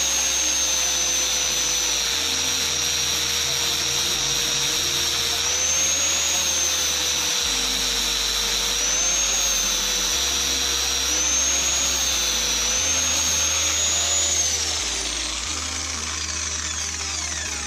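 Angle grinder cutting through a steel motorcycle chain link, grinding off the link so it can be removed. Its high whine dips in pitch several times as the disc bites, then winds down as it is switched off near the end.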